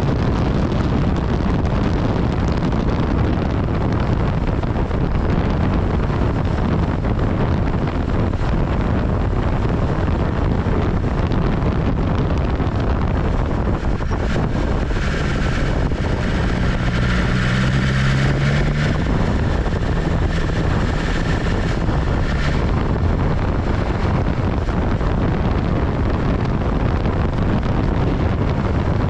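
Steady wind rush over the microphone on a moving BMW S1000XR motorcycle, with the engine running underneath. About halfway through, a rising engine note joins for several seconds, then fades.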